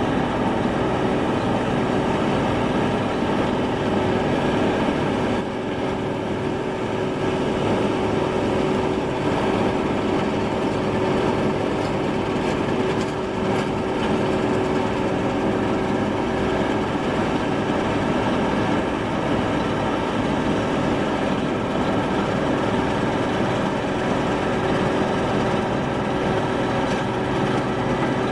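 Claas Mega 208 combine harvester running steadily, its engine holding a constant pitch with a steady tone over it.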